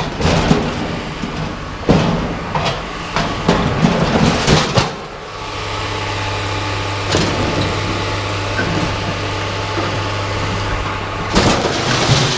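Scrap metal clanking and banging as pieces are pulled off the load and dropped, with a steady low engine hum setting in about five seconds in.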